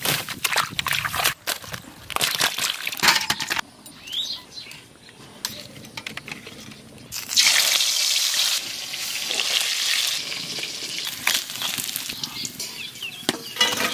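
A run of crackling noises, then a loud sizzle that starts suddenly about seven seconds in as marinated climbing perch fry in hot oil in a wok; the sizzle keeps going, a little softer.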